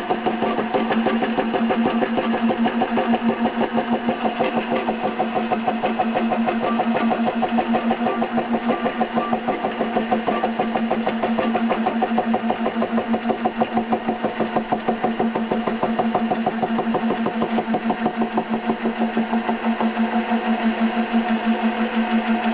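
Milling machine running with a form cutter cutting a tooth into a Delrin gear blank: a steady hum with a fast, even pulsing.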